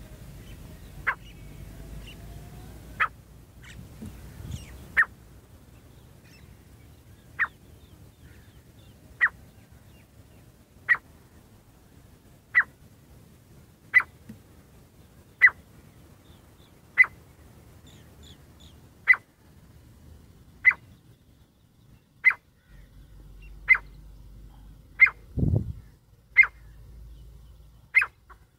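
A caged teetar (francolin) used as a call bird to lure wild partridges, calling with a short sharp note repeated about every one and a half to two seconds.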